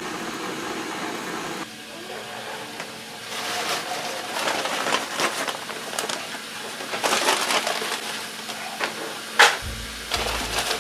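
Butter and oil sizzling and crackling in a stainless steel pot on medium heat, the crackle thickest from about three seconds in. One sharp knock of metal about nine and a half seconds in.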